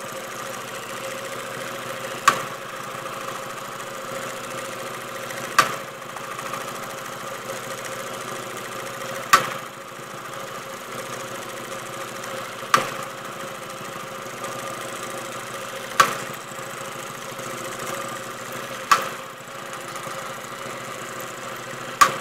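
Siruba T828-45-064M two-needle lockstitch industrial sewing machine running steadily as it stitches through fabric, with a sharp click about every three seconds, seven in all.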